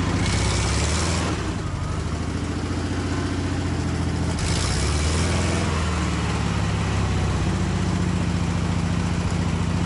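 ZAZ-968M's air-cooled rear-mounted V4 engine running as the car reverses and drives forward again, its pitch rising and falling with the throttle. Two short bursts of hiss come near the start and about halfway through.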